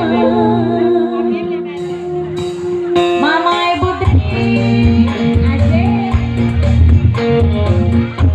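Live dangdut band music: sustained held notes under a wavering melody line, with a drum beat coming in about four seconds in.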